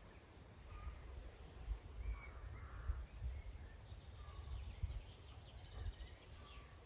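Outdoor ambience: faint bird chirps scattered through a low, fluctuating rumble of wind on the microphone.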